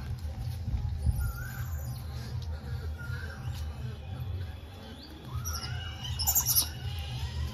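A bird calling: a short rising call repeated about every one and a half to two seconds. A louder, shrill squeal comes about six seconds in, over a steady low rumble.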